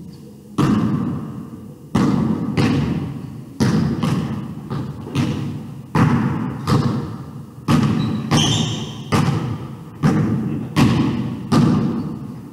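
Basketball dribbled on a hardwood gym floor: a steady run of bounces, roughly one or two a second, each echoing in the large hall.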